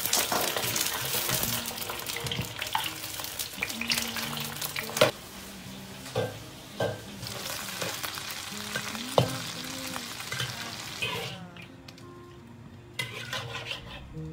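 Prawn heads frying in hot oil in a wok to render prawn oil: a loud sizzle that slowly fades and drops away after about eleven seconds. A metal spatula scrapes and knocks against the wok now and then as the heads are turned.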